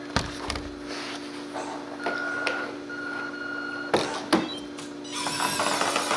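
Small electric motor and gearbox of an RC model, whirring loudly from about five seconds in over a steady electric hum, with a few light knocks before it.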